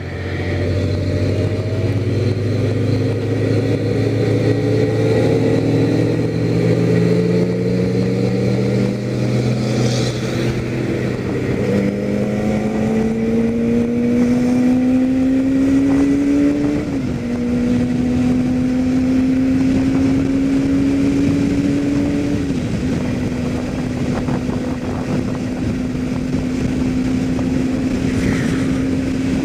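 Kawasaki ZZR400N's inline-four engine accelerating hard up through the gears. The pitch climbs and drops back at each upshift, then holds steady at cruising speed for the last several seconds.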